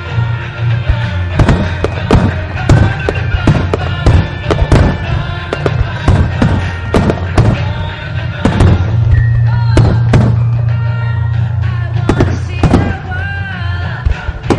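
Aerial firework shells bursting in quick succession, sharp bangs starting about a second and a half in and coming irregularly, several a second at times, over loud music with a sung melody.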